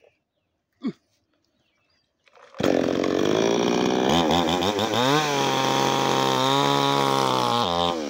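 Gasoline two-stroke chainsaw with a 22-inch bar starts running about two and a half seconds in, then revs up and runs at high speed, with a brief dip in engine speed near the end.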